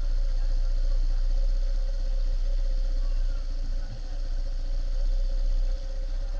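Small motorbike engine idling steadily, its firing pulses a fast even beat.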